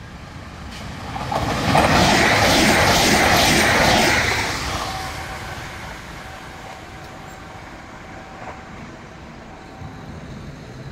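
Electric TER regional passenger train passing at speed: a rush of wheels on rail with a rapid rhythmic clatter builds to its loudest about two to four seconds in, then fades as the train runs away.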